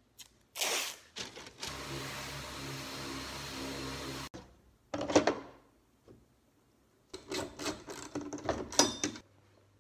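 A short rip of masking tape, then a power sander running steadily on a primed body panel for about three seconds before it cuts off suddenly. After it come loud clicks, knocks and rattles of hand-tool work on a carbon-fibre panel, in one short burst and then a dense run near the end.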